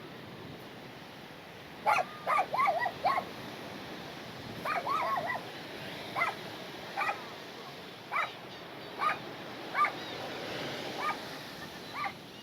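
Dog barking and yipping in short calls. There is a quick flurry of several barks about two seconds in and another near five seconds, then single barks roughly once a second.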